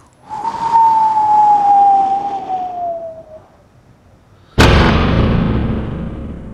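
Intro sound effects: a whistle with a rushing hiss, sliding slowly down in pitch for about three seconds as the logo falls. After a short gap comes a sudden loud impact, which dies away over about two seconds as the logo cracks.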